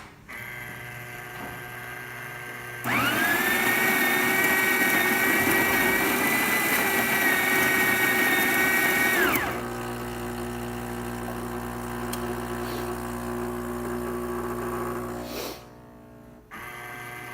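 Krups EA8250 bean-to-cup espresso machine starting a test brew: its built-in coffee grinder whines loudly for about six seconds, beginning about three seconds in and stopping sharply. A lower, steady machine hum follows, dropping out briefly near the end.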